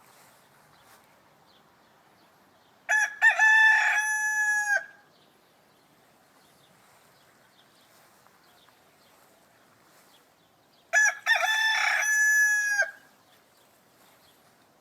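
Rooster crowing twice, each crow a pitched call of about two seconds that ends on a long held note, about eight seconds apart, with a faint background hiss between.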